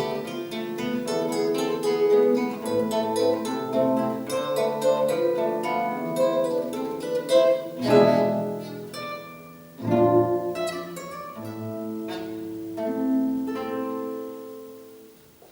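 Plucked string instruments playing the closing bars of a piece, with strong chords about eight and ten seconds in and a last chord ringing away to silence near the end.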